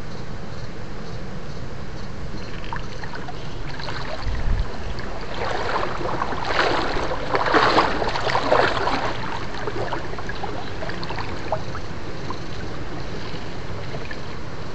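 Water sloshing and splashing, loudest for a few seconds in the middle, with a dull thud just before, over a steady low rumble.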